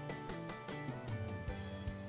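Background instrumental music.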